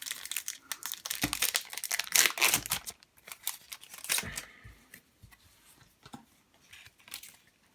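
A Pokémon booster pack's foil wrapper being torn open and crinkled. There is a dense crackle for about three seconds, which thins to a few scattered rustles and clicks by about halfway through.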